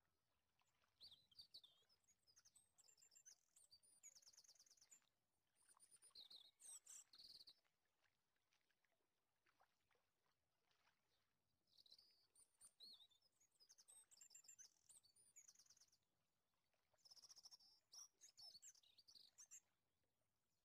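Faint bird chirping, quick chirps and trills in four bouts separated by near silence.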